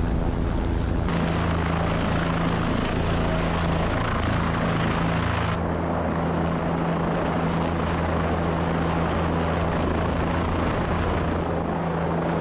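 Helicopter running steadily at high power during a lift, with a constant low hum under dense noise. The sound shifts abruptly about a second in and again near the middle.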